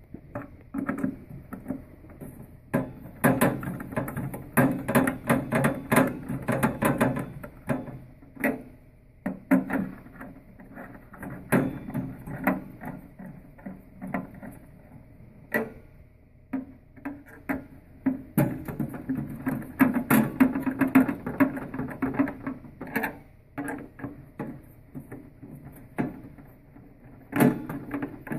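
Rapid, irregular clicking, tapping and rattling of an 11/32 nut driver and hands working against the steel panel of a Revolation Delta tempering machine as the nuts holding the control card are tightened. The clicks come in dense clusters with short lulls in between.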